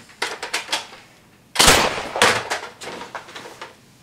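Nerf foam-dart blaster being worked and fired: a few quick clicks, then a loud sharp shot about a second and a half in and a smaller pop about half a second later, with lighter clicks after.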